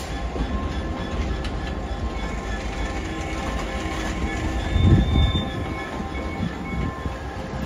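Class 66 diesel locomotive, with its two-stroke V12 engine, running on the track: a steady low rumble with faint steady whining tones over it, and a louder thud about five seconds in.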